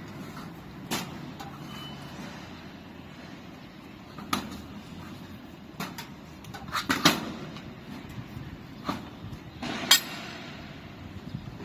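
Roller shutter door being struck and worked during a repair: a series of sharp knocks and clanks at uneven gaps, the loudest a quick cluster about seven seconds in and a single knock near ten seconds, over a steady low rumble.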